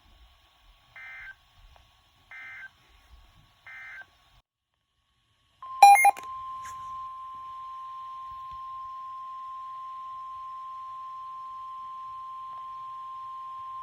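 Emergency Alert System end-of-message code: three short warbling digital data bursts about a second apart, marking the end of a weather radio warning. About six seconds in comes a sharp loud click, then a steady single-pitch NOAA Weather Radio alert tone (1050 Hz) that holds for about nine seconds as the next warning is announced.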